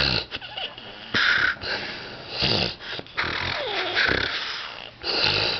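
A sleeping man snoring in short, noisy breaths about a second apart, with a wavering whistle in the breath now and then.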